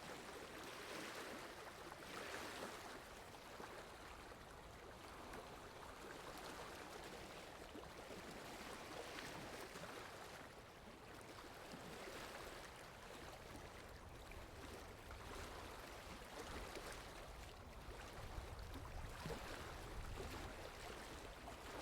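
Faint, even background hiss of outdoor ambience, with no distinct animal calls.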